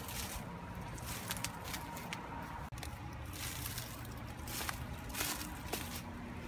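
Footsteps crunching on wood-chip mulch, an irregular run of soft scuffs over a low background rumble.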